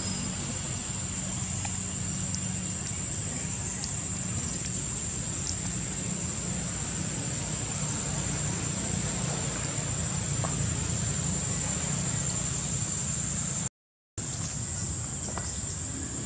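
Steady outdoor ambience: a continuous high-pitched insect drone over a low rumble, with a few faint ticks. The sound cuts out for about half a second near the end, then resumes.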